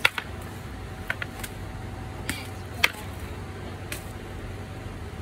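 Several short, sharp knocks and clicks at uneven intervals as a wooden practice spear is swung and handled in two-handed strikes, over a steady low hum of distant traffic.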